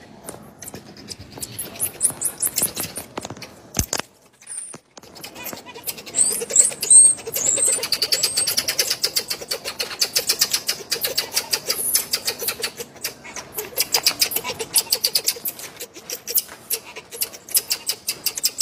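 Marmosets calling: rapid, repeated high-pitched chirps and twitters, with a few brief high whistles about six to seven seconds in.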